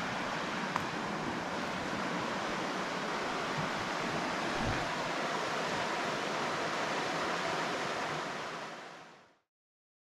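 Steady rushing of river rapids that fades out to silence near the end.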